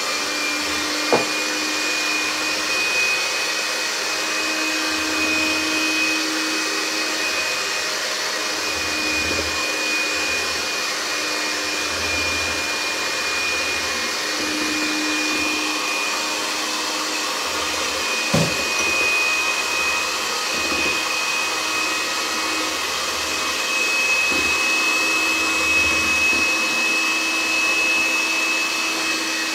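Corded electric hand mixer running steadily, its beaters whisking cream in a plastic bowl, with a steady whine over the whirr. A couple of brief knocks, about a second in and again past the middle.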